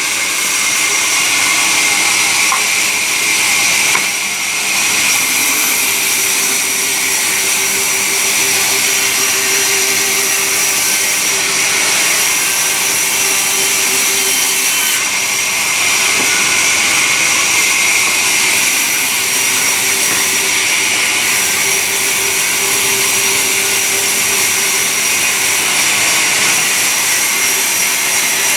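Sawmill saw cutting timber: a steady, loud mechanical noise with a high-pitched whine.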